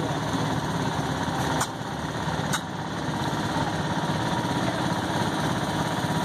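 Small engine of a 1988 15-horsepower Craftsman garden tractor running steadily as it drives slowly past. Two brief clicks come about a second and a half and two and a half seconds in.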